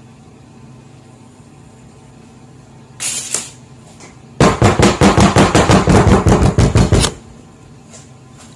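Glass baking dish full of cake batter rapped rapidly against a wooden countertop, about twenty quick knocks in under three seconds, to bring the air bubbles out of the batter. One shorter bump comes about a second before the run of knocks.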